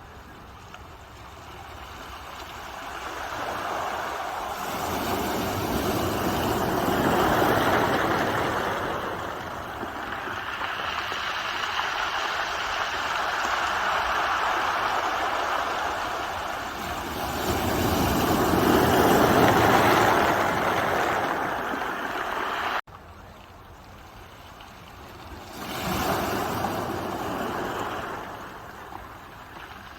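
Ocean waves breaking and washing in, each surge swelling and fading over several seconds. The sound drops off suddenly about two-thirds of the way through, then another wave swells in.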